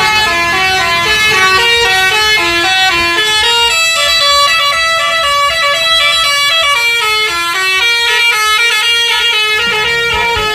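An Indonesian tour bus's musical 'telolet' air horn playing a fast tune of short, stepped notes, loud and without a break.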